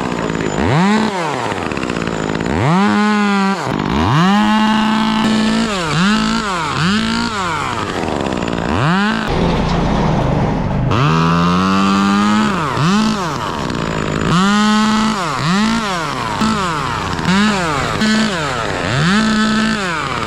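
Two-stroke chainsaw revved in many short bursts, each rising quickly to full speed, holding briefly and dropping back toward idle, with one longer run at full speed about ten seconds in.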